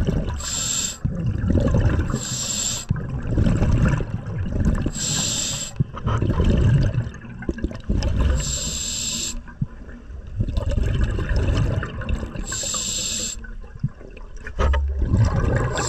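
Underwater recording: a scuba regulator hissing with each breath, five short breaths two to four seconds apart, over a steady low rumble of water moving past the camera.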